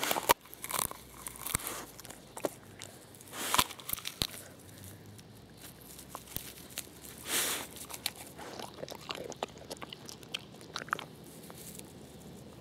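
A dog biting and chewing a peanut in its shell, cracking it open: irregular crunches and sharp clicks.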